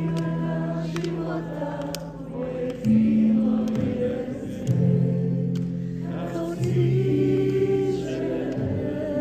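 Live music with voices singing long held notes in a choir-like blend over a sustained low accompaniment, the notes changing every two seconds or so.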